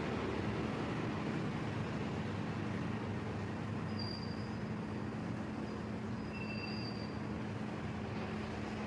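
Steady background rumble with a low hum underneath. A few faint, short high-pitched tones come about halfway through.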